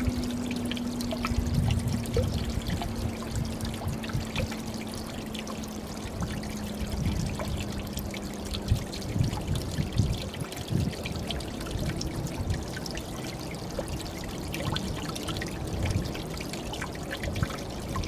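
A gentle waterfall of seep water pours and trickles into a deep plunge pool, with many small splashes. A steady low hum fades out about halfway.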